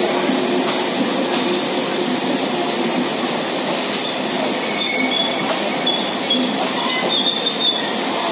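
Bangladesh Railway intercity passenger coaches rolling slowly past the platform: a steady rumble of steel wheels on the rails, with short high-pitched wheel squeals in the second half.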